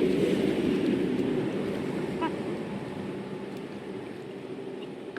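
A small engine running steadily, growing fainter over the few seconds as it moves away.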